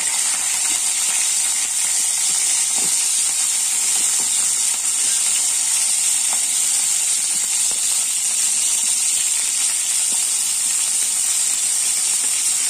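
Green chillies and whole spices sizzling steadily in hot oil in an iron kadai.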